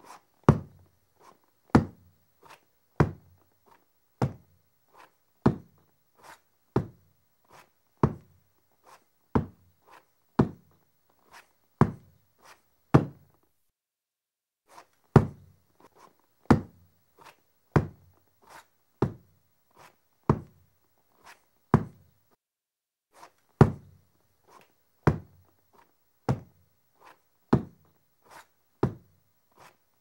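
Footsteps of a person walking with a prosthetic leg, in an uneven limping rhythm: a heavy thunk, then a lighter tap, about one stride a second. The steps stop for about two seconds halfway through, then go on.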